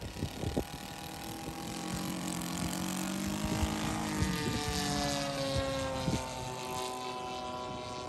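Radio-controlled Boeing F4B scale biplane's engine and propeller on the takeoff run, the note climbing in pitch and getting louder as it accelerates. From about halfway the pitch drops steadily as the plane lifts off and flies away. Wind buffets the microphone near the start.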